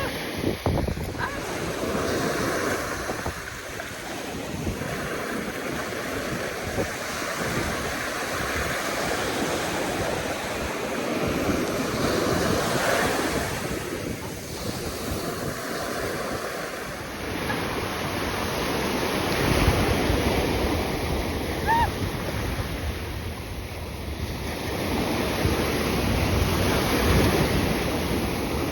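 Ocean surf breaking and washing up the beach, swelling and ebbing every few seconds, with wind buffeting the microphone.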